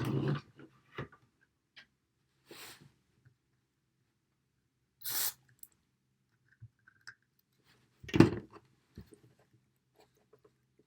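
Two short hisses of DeoxIT contact cleaner sprayed from an aerosol can into the potentiometers, the second about five seconds in and louder. About eight seconds in comes a loud knock, with small clicks and taps of handling between.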